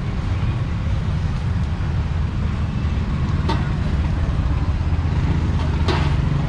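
Street traffic: a steady low rumble of running vehicle engines close by, with two short sharp clicks about three and a half and six seconds in.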